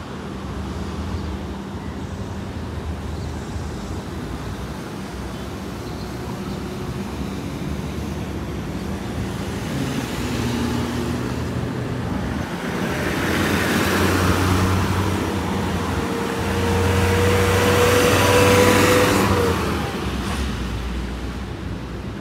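Road traffic: a steady low hum of engines, with vehicles passing close. The passes swell louder about halfway through and again near the end, and the later one carries a steady whine.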